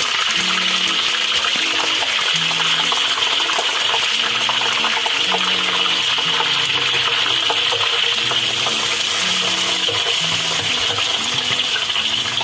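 Hot cooking oil sizzling steadily in a wok, full of fine crackles, as spring onions, celery leaves and daun salam and lime leaves fry in it until wilted. A soft low tune of stepping notes runs underneath.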